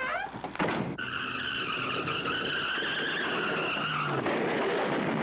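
Car tyres screeching in a skid: a steady high squeal lasting about three seconds over road and engine noise, which carries on briefly after the squeal stops.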